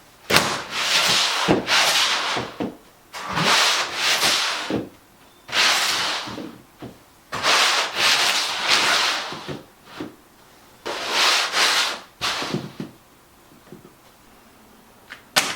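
A series of harsh rubbing or scraping noises, each about a second long, about eight in a row with short gaps, some starting with a sharp click; a single click near the end.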